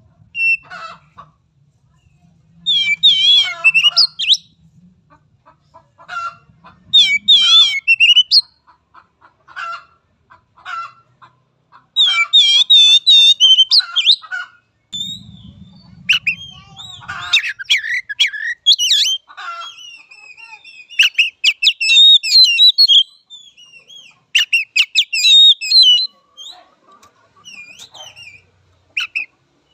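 Oriental magpie-robin (kacer) singing loudly: bursts of rapid, varied whistled phrases and trills, separated by short pauses. A faint low rumble sits underneath at the start and again briefly around the middle.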